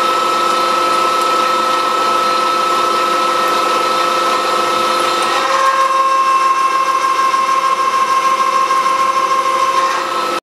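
Milling machine spindle turning a twist drill, a steady machine whine with a few fixed tones. About five and a half seconds in the main tone drops in pitch and the sound gets a little louder as the drill cuts into the metal.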